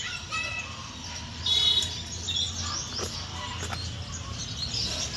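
Small birds chirping in short high calls, the loudest cluster coming about one and a half seconds in and more near the end, with a couple of faint clicks.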